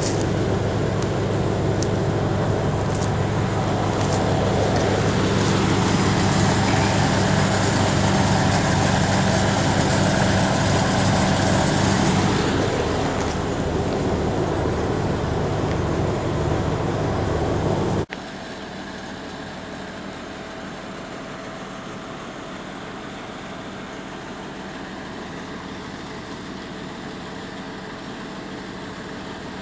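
Heavy diesel engines running steadily, loud and close, their pitch dipping and recovering midway. About two-thirds of the way through the sound cuts abruptly to a quieter, more distant diesel idle.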